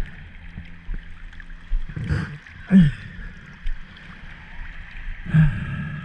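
Water washing and gurgling around the microphone, with two short louder sounds, about two seconds in and again about five seconds in.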